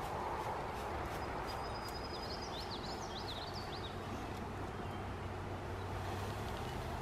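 A mass of Russian honeybees buzzing steadily as a package of bees is shaken out into a hive box. A songbird chirps quickly, about two to four seconds in.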